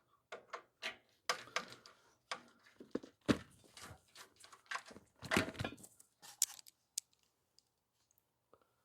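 Hand work on the machine's parts and wiring while disconnecting its motor: a quick, irregular run of clicks, knocks and rattles for about six seconds.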